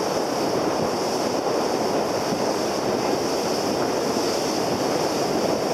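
Steady rush of sea water along the hull of an inflatable boat under way, with wind on the microphone.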